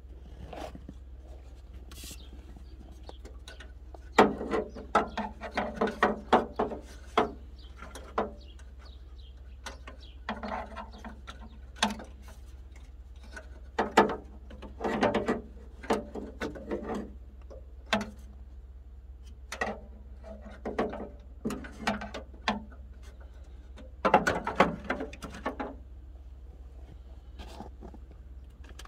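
Hand socket ratchet clicking as headlight mounting screws on a Chevy S10's front end are turned: about five runs of rapid clicks, each one to three seconds long, with pauses between.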